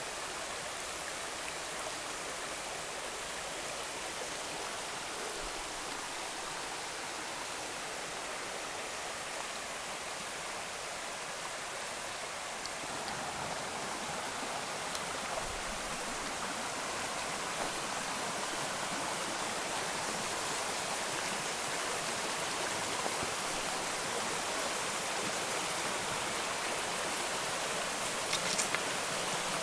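Running water of the Valmolina torrent flowing over stones, a steady rushing noise that grows slowly louder. A few faint clicks near the end.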